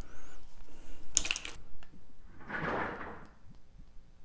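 Handling noises from a fresh bottle of apple cider vinegar being opened and poured into a measuring tablespoon: a click, a short sharp scrape about a second in, then a softer rustling swell.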